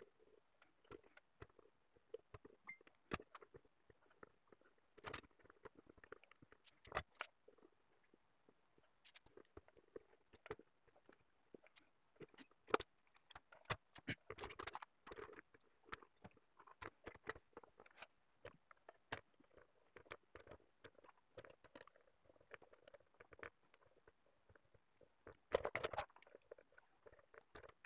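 Faint, scattered clicks and light rustling from hand work at a circuit board being soldered: the iron, solder wire and component leads handled and touched against the board. There is a short louder patch of handling noise about halfway through and another near the end.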